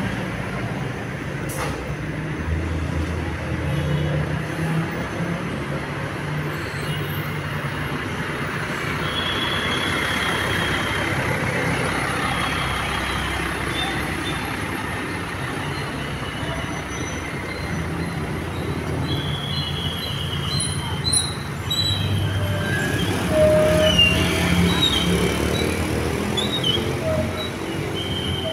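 Road traffic with heavy bus engines running. From about nine seconds in there are short, faint high tones every few seconds, and the sound grows louder about 23 seconds in.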